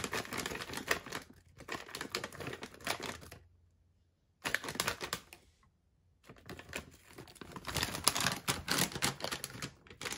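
Frozen blueberries tipped from a bag into a plastic blender cup, rattling in as a fast patter of small hard clicks in three spells with two short pauses between.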